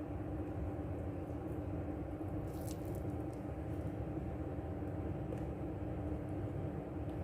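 Steady low machine hum with a constant pitched drone, and one faint click about two and a half seconds in.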